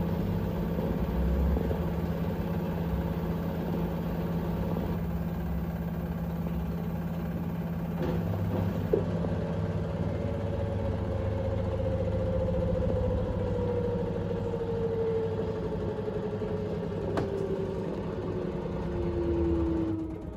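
LG 7 kg front-loading washing machine in its interim spin, with a slightly unbalanced load. The drum runs with a steady low hum, then over the second half a motor whine falls steadily in pitch as the spin slows down. There is a short click about nine seconds in.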